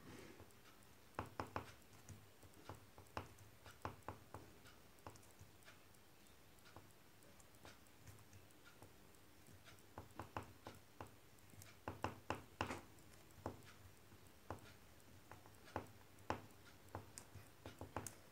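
Faint, irregular ticks and light scratches of a black oil pastel making short strokes on a drawing sheet, coming in little clusters.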